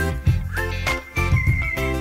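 Upbeat background music with a steady beat, a bass line and a thin high lead melody, looping in a short phrase that repeats about every two seconds.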